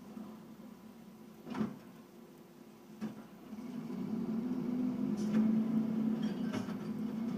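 Old recycling truck running with a steady low hum that grows louder about halfway through, with a few sharp knocks and clunks.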